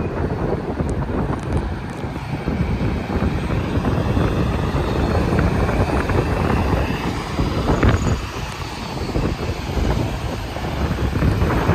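Interstate highway traffic passing at speed: a steady rush of tyre and engine noise, with one vehicle going by loudest about eight seconds in. Wind buffets the microphone.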